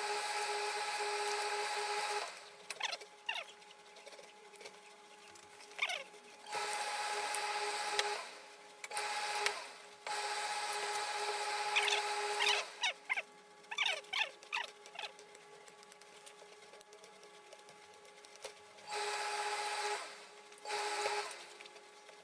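Industrial steam iron letting out steam in six blasts of hiss with a steady hum. They start and stop abruptly, the longest about two and a half seconds, with cloth rustling and small knocks as the suit fabric is handled between them.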